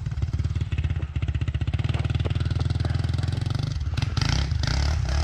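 Quad (ATV) engine running with a fast, even putter as it rides along a trail; about four seconds in it turns louder and rougher.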